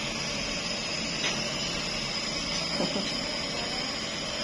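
Compressor nebulizer running with a steady hum and hiss, driving a medicated mist for a child's cough, cold and tight chest.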